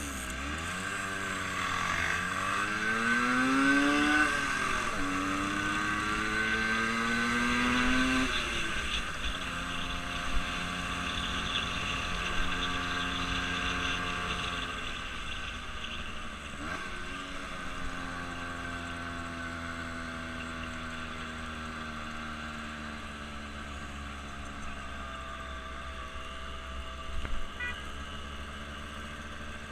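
A vehicle engine accelerating, its pitch rising twice and dropping suddenly each time as if shifting up a gear, then running at a steady speed with its pitch slowly falling.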